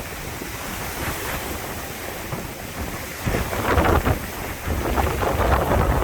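Wind gusting across the microphone, a low rumbling buffet that grows stronger a little over three seconds in.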